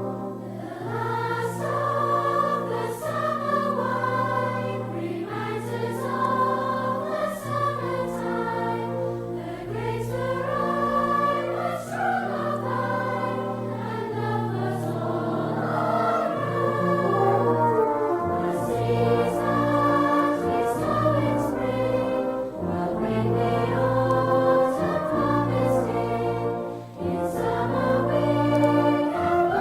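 Closing music in a choral and orchestral style: voices singing sustained chords over brass and a steady low bass line.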